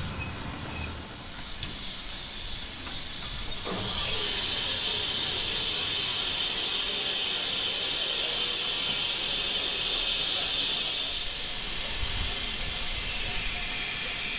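Steam hissing from BR Standard Class 4MT 2-6-0 No. 76079. It is a steady high hiss that starts about four seconds in and eases off a few seconds before the end, with a faint knock just before it starts.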